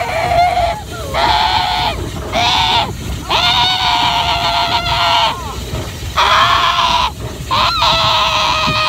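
A child's voice letting out about five long, held, high-pitched cries, each up to two seconds, with short breaks between them, over a steady low rumble.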